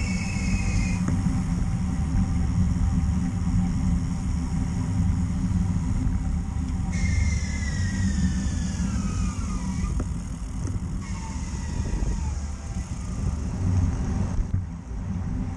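Steady low rumble of wind on the microphone and road noise while riding a bicycle. About seven seconds in, a high whine falls steadily in pitch over about three seconds, and a shorter falling whine follows just after.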